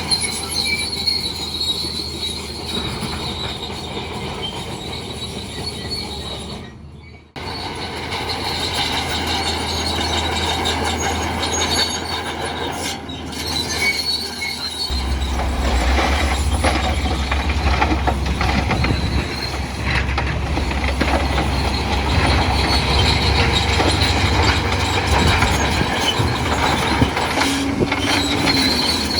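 Crawler bulldozer working, its engine running under a steady high squeal and clatter from the steel tracks. About seven seconds in the sound drops out briefly, and after the midpoint the low engine hum is louder.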